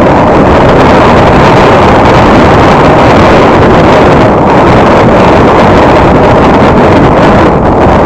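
Loud, steady rushing noise of a car driving along a paved road: engine, tyre and wind noise, with wind buffeting the microphone.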